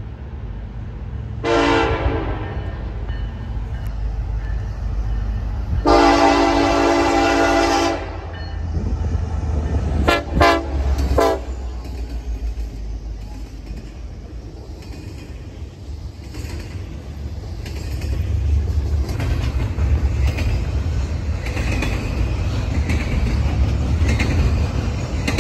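Norfolk Southern diesel freight locomotive's air horn sounding a crossing warning: a short blast, a long blast of about two seconds, then three quick short blasts. The locomotives then rumble past and the double-stack container cars roll by with wheel clatter on the rails.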